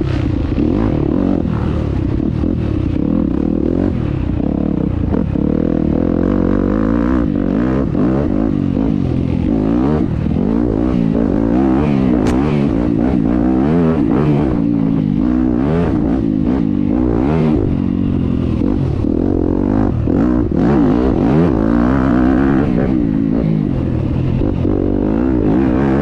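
Dirt bike engine running hard under constant throttle changes, its pitch rising and falling over and over.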